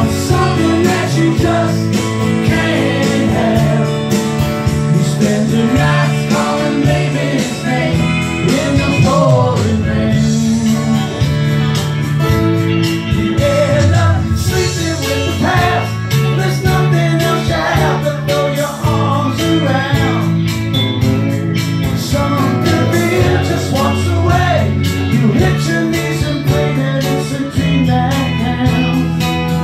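Live band performance of a country-rock song: two acoustic guitars strumming chords under a lead melody line that bends in pitch.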